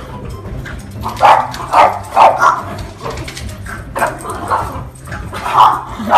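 Puppies barking during rough play: a string of short, high yapping barks that come in bunches of two or three.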